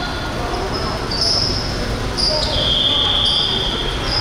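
Basketball shoes squeaking on a gym floor during play: a scatter of short high squeaks and one longer one about two and a half seconds in, over voices and general gym noise.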